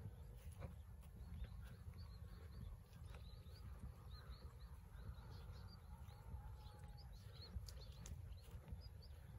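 Faint outdoor field ambience: a low rumble of wind on the microphone, with scattered short high chirps, a few light taps, and a faint held tone about six seconds in.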